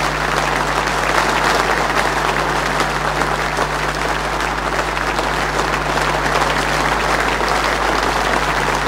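A large hall audience giving prolonged, steady applause, with a steady low electrical hum underneath.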